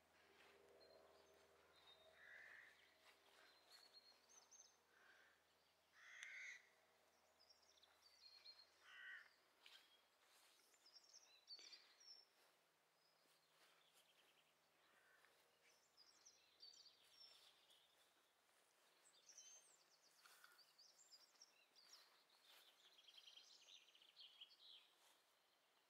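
Faint outdoor birdsong: a few short calls in the first half and scattered small-bird chirps throughout, over a low background hiss.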